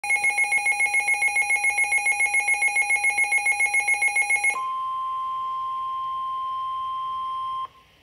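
Midland WR-400 NOAA weather radio sounding a rapid pulsing electronic alarm, about seven beeps a second. After about four and a half seconds it switches to the steady 1050 Hz NOAA Weather Radio warning tone, which cuts off suddenly near the end. This is the radio alerting to a Special Marine Warning.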